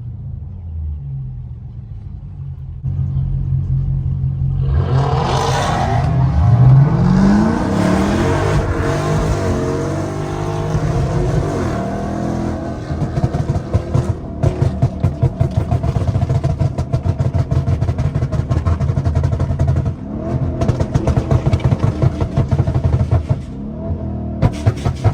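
Tuned Dodge 392 Daytona's 6.4-litre HEMI V8 running loud. The revs climb about five seconds in and hold high. From about thirteen seconds the exhaust breaks into a rapid, choppy pulsing that runs on until near the end.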